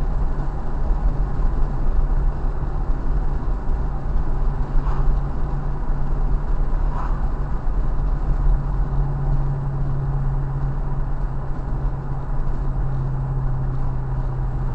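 Ford Mustang cruising at steady speed, heard from inside the car: a constant low tyre and road rumble under a steady engine drone that grows a little stronger past the middle.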